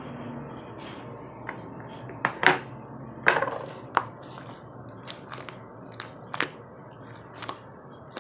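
Black pearl slime being squeezed and pressed by hand: a string of irregular sticky pops and clicks, with the loudest cluster between about two and four seconds in.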